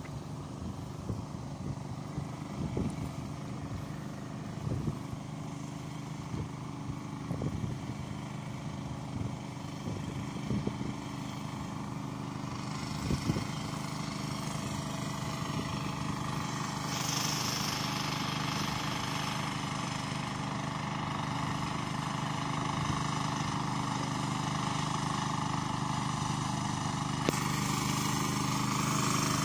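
Turtle tiller, a rice-paddy hand tractor, with its 12 hp Yamma diesel engine running steadily as it works through deep mud. The engine grows gradually louder as the machine draws nearer.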